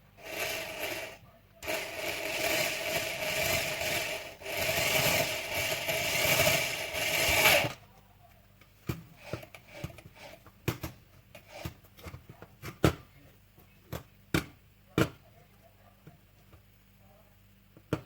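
Electric drill drilling holes: a short run, then about six seconds of steady drilling with a brief let-up partway, stopping abruptly. Scattered clicks and knocks of handling follow.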